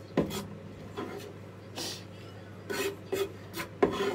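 Irregular scraping strokes on a wooden cutting board as finely chopped onion is swept off it into a bowl.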